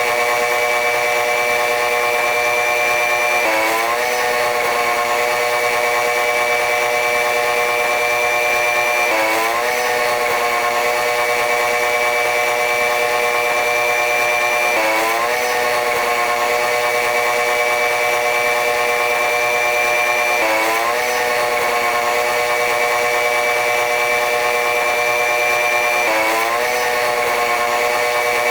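Running noise of a diesel-electric locomotive-hauled passenger train: a steady whine of several tones that drops sharply in pitch about every six seconds, then slowly climbs back.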